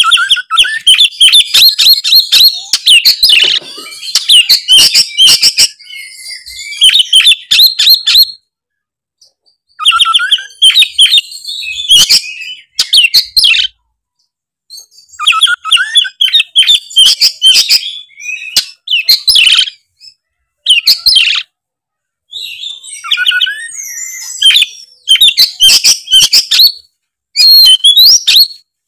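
Oriental magpie-robin (kacer) singing loudly in full song. Rapid phrases of whistled notes, trills and sharp clicking notes come in bursts, with short pauses between phrases.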